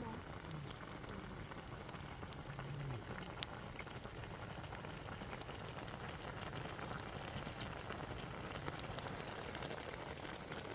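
Pot of spicy braised pork intestine bubbling steadily, with many scattered sharp pops and crackles.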